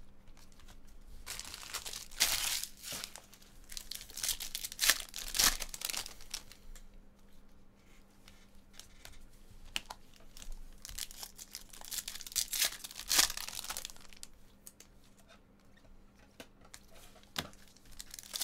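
Foil baseball-card pack wrappers crinkling and tearing as they are handled and torn open. The sound comes in bursts, loudest a couple of seconds in and again about two-thirds of the way through.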